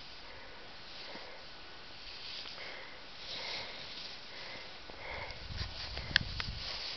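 A person breathing in and out through the nose close to the microphone, a soft sniff about once a second, with a few sharp clicks near the end.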